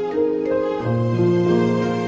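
Background instrumental music of long held notes, with a low note coming in about a second in.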